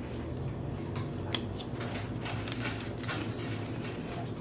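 Small clicks, taps and rustles of a cured resin coaster being handled and peeled off its silicone mold insert, with one sharper click a little over a second in. A steady low hum runs underneath.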